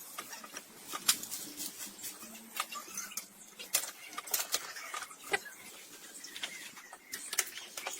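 Irregular sharp clicks and light taps, some with short high squeaks, over a faint low hum.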